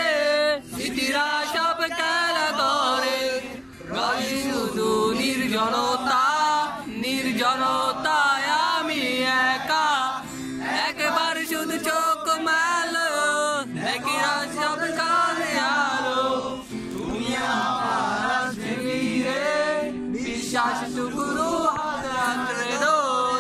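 A group of young men singing together in unison to a strummed acoustic guitar.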